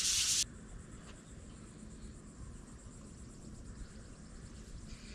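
Rhythmic hand rubbing strokes against the boat's fiberglass hull, stopping about half a second in. Then only a faint low background hum, with a faint high chirring near the end.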